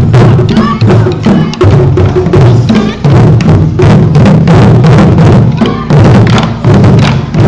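Ensemble of taiko-style barrel drums struck with sticks: loud, dense rhythmic drumming with deep drum strokes and sharp clicks among them.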